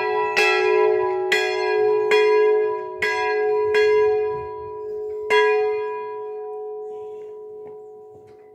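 Swinging bronze church bells, which the uploader judges by their sound to be Jan Felczyński castings, strike about once a second at uneven intervals. The last stroke comes about five seconds in, and the bells then ring on and fade away as they come to rest at the end of the peal.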